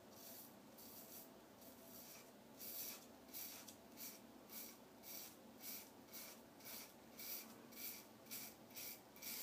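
Gillette Psycho Tech safety razor with a Derby Extra blade scraping through lathered beard stubble in short strokes. The strokes are faint at first and become clearer from about two and a half seconds in, at about two a second.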